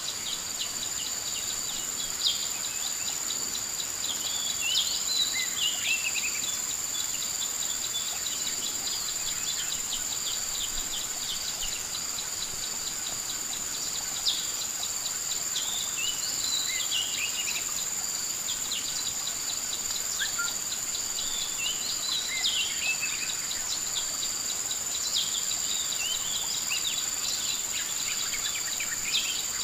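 Steady, high-pitched drone of insects such as crickets or cicadas, with a bird's short descending chirping phrases recurring every several seconds and a couple of sharp clicks.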